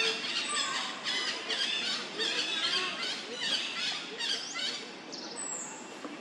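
Young macaque squealing: a rapid series of high, arching squeals that thin out after about four and a half seconds.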